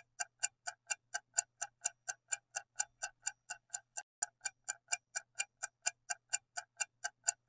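Clock-tick sound effect ticking evenly at about four ticks a second: a quiz countdown timer running while the viewer chooses an answer.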